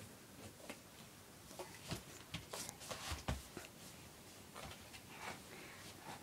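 Quiet room with faint scattered taps, clicks and rustles from handling and movement, and a low thump about three seconds in.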